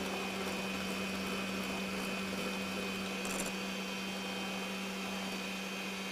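Electric hand mixer running at a steady speed, its beaters whipping powdered cream mix with ice-cold water in a glass bowl so that the cream stiffens; a constant motor hum throughout.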